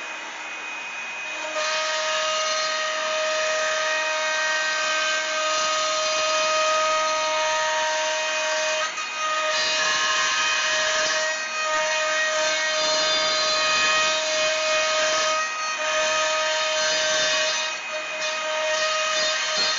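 Makita trim router on a CNC machine cutting a circular hole through plywood: a steady high whine mixed with cutting noise, stepping up in loudness about a second and a half in as the bit bites into the wood, with a few brief dips as it moves along the circle.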